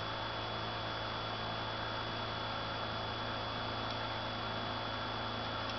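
Steady low electrical hum with a thin, high steady whine and hiss, unchanging throughout.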